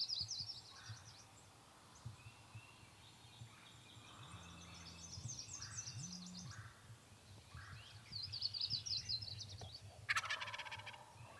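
A wild turkey gobbler gobbling loudly once, a rapid rattling call of about a second, about ten seconds in. Songbirds trill repeatedly in the background.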